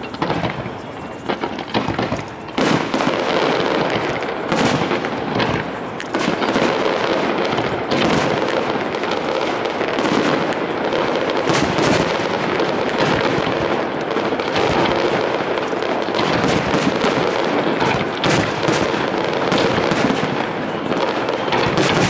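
Aerial firework shells bursting in quick succession: a dense run of bangs that merges into an almost continuous barrage from about two and a half seconds in.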